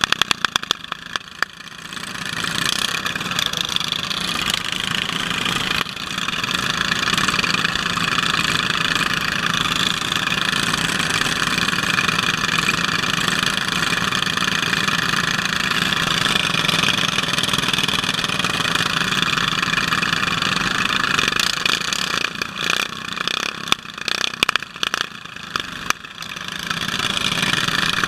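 Several racing riding lawn mower engines running at idle and low throttle, close to the microphone. The sound breaks up choppily for a few seconds near the end.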